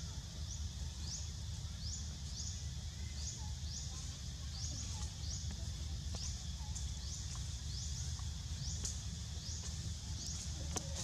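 Forest ambience: a high, rising chirp repeats about twice a second over a steady low rumble, with a sharp click near the end.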